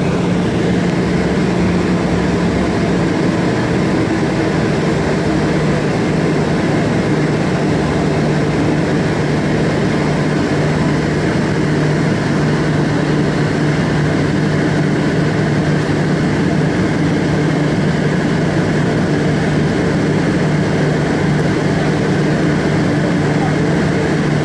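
Rolls-Royce Trent 800 engines of a Boeing 777-200ER heard from inside the cabin, running steadily at low power before takeoff, with no spool-up. A steady low hum that drops slightly in pitch about two seconds in, over a constant rush of noise.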